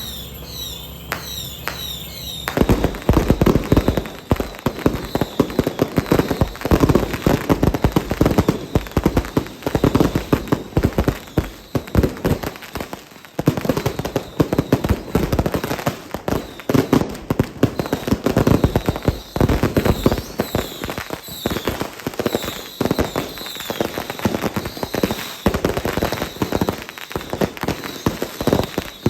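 Fireworks and firecrackers going off in a dense, continuous crackle of rapid sharp bangs, starting about two seconds in after a short bit of music.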